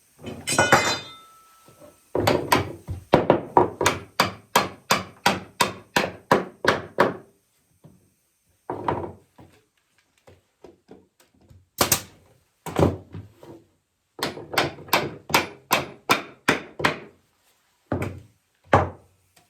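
Repeated blows knocking a walnut rocking chair's side rounds (rungs) into their posts: a run of about a dozen sharp thunks at roughly two a second, a pause, then another run and a few spaced blows near the end. A short squeaky sound comes just under a second in.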